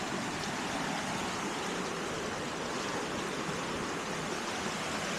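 Steady, unbroken rushing of pouring rain and running water.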